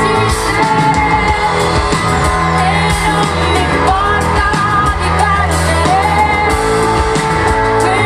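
Live pop band playing loudly with a woman singing lead into a microphone, heard through a concert PA.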